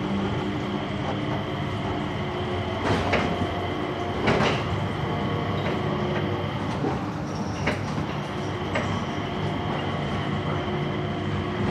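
Changi Airport Skytrain, a driverless people mover, running along its guideway, heard from inside the car: a steady hum and rumble with an even whine over it. A few sharp clicks or knocks come through, the loudest about three and four and a half seconds in.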